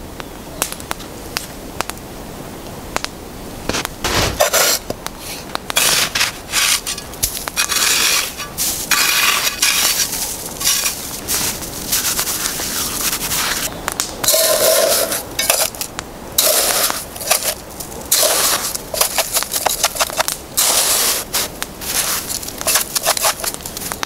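Wet spring snow crunching and scraping in irregular bursts as it is scooped up by hand and into a metal pot, with a few louder knocks of the pot.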